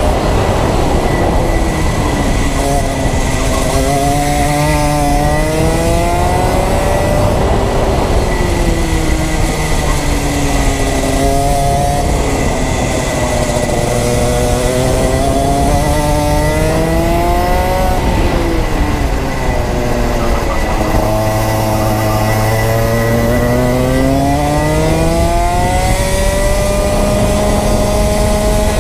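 Rotax Max 125cc two-stroke kart engine at racing speed, its pitch climbing as it accelerates and falling off as it slows, over and over through the lap.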